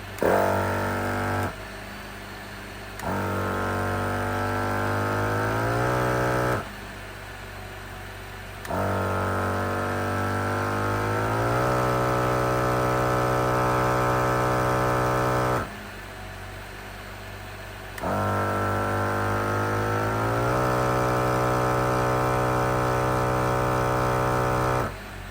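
12 V portable dual-cylinder air compressor running off a vehicle battery, pumping up a tire from about 25 psi. It runs in four stretches of steady humming, each longer than the last. Each stretch starts with a rising pitch as the motor spins up and cuts off sharply. In the gaps only a low engine idle remains.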